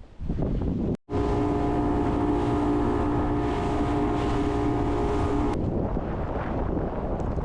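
Boat motor running at a steady pitch over heavy wind noise and rumble on the microphone. There is a brief cut about a second in, and the engine tone drops out suddenly after about four and a half seconds, leaving the wind and water rumble.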